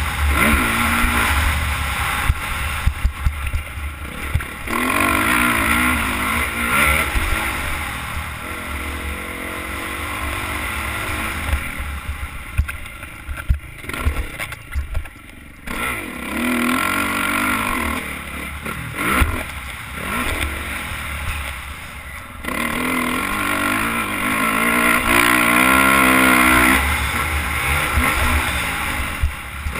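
Motocross dirt bike engine revving up and falling back over and over as the throttle is worked, dropping away briefly about halfway through. Wind buffeting and bumps thud on the helmet-mounted microphone.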